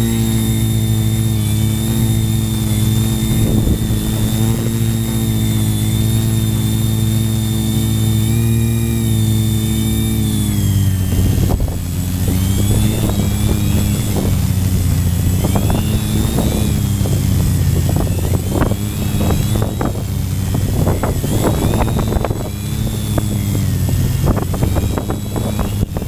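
Quadcopter's electric motors and propellers whirring close to the onboard camera in flight: a steady pitch that drops about eleven seconds in, then rises and falls unevenly as the throttle changes, with short rough bursts of noise.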